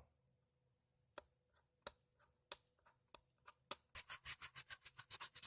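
Fingers picking at and peeling a sticker off hard plastic: a few scattered small clicks, then a quick run of short scratchy ticks, about six a second, near the end.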